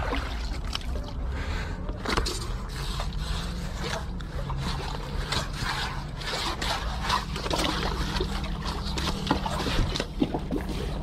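Wet scraping, crackling and dripping as a freshly caught octopus or squid is handled, over a low steady hum.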